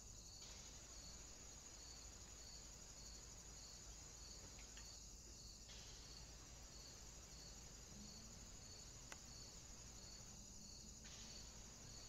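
Faint, steady high-pitched insect chirring with a regular pulse about twice a second. A single sharp click about nine seconds in.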